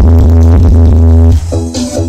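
Electronic dance music with a heavy, steady bass, played loud through a large sound-system speaker rig. About one and a half seconds in, the bass drops out and the level dips.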